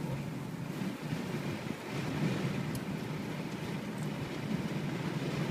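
Car engine and tyre noise as the car creeps slowly along, heard from inside the cabin: a steady low hum.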